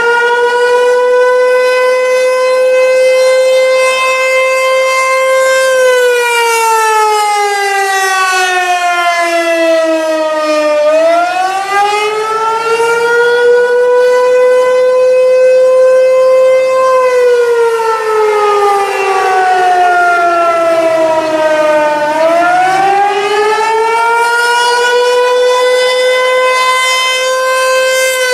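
Outdoor civil defense warning siren sounding a wail: the pitch climbs, holds high for several seconds, then slides slowly down before climbing again, in cycles of about eleven seconds.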